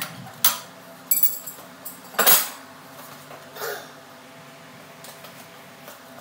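Steel hand tools clanking and clinking against metal, a string of sharp knocks over the first four seconds, a few with a brief ringing and the loudest a little after two seconds in.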